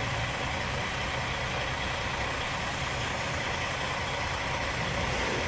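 Diesel engine of a semi-truck idling close by, a steady low rumble under a constant hiss.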